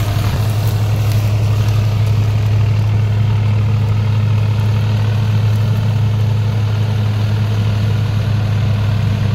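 Deutz-Fahr 4055 tractor's diesel engine running steadily under load as it drives a Jagatjit straw reaper through wheat stubble, the engine hum and the machine's whirring blended into one even drone.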